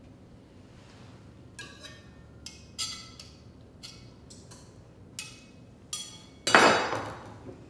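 Carving knife and fork clinking and knocking against a ceramic plate and cutting board as a roast pork tenderloin is sliced and the slices are laid down, several of the clinks ringing briefly. A louder clatter comes about six and a half seconds in.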